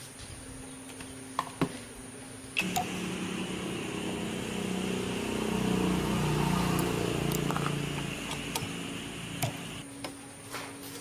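A small motor running steadily for about seven seconds, starting abruptly a couple of seconds in and cutting off near the end, with scattered light taps and clicks around it.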